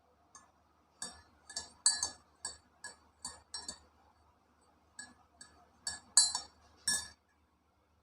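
A series of light, irregular glass clinks, about two a second with a short pause midway, as glassware and a utensil are handled while the lemon drink is prepared.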